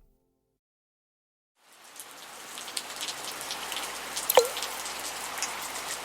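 Rain sound fading in after a second and a half of silence: a steady patter with scattered drop hits and one louder drop plink about four seconds in.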